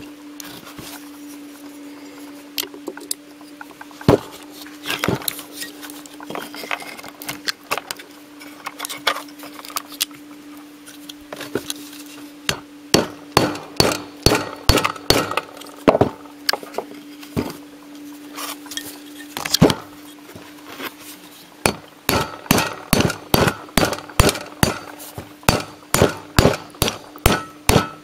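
Hammer blows on a metal drift driving a magnetic shunt, a pack of laminations, out of a microwave oven transformer's core. The taps are scattered at first, then come quickly, about two or three a second, from about halfway through, with a steady hum underneath.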